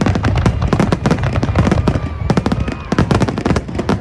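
Fireworks display: a dense, rapid barrage of bangs and crackles from aerial shells, many a second, with a brief whistle about two seconds in.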